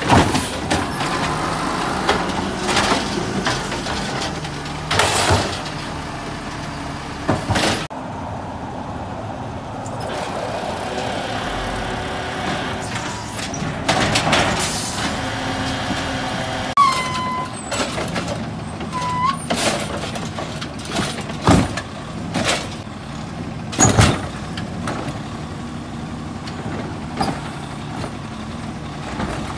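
Garbage truck at work: its engine running steadily under a series of clanks and bangs, with a few short hisses and two brief squeals in the second half.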